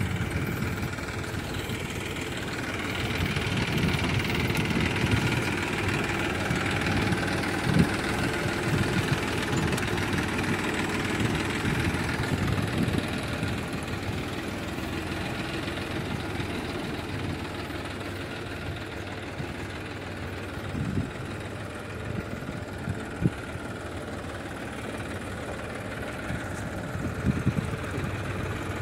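Massey Ferguson 1035 DI tractor's three-cylinder diesel engine running steadily as the tractor works a dozer blade through loose sand. The engine is a little louder in the first half, with a few short knocks later on.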